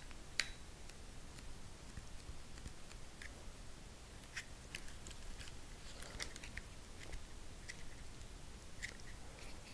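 Faint handling noise of fingers pressing and rubbing a warmed rubber adhesive grip wrap onto a pistol's polymer grip, with scattered small clicks and rubbing ticks as it is molded into place.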